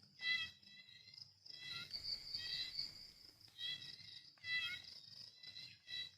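Small animals calling in repeated short chirping trills, groups of high stacked tones a fraction of a second long with brief gaps, over a steady high-pitched chorus.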